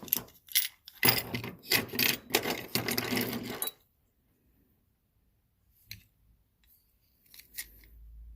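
Small metal and plastic parts of a broken-open circuit breaker clicking and rattling as they are handled, for about the first four seconds, then only a couple of faint clicks.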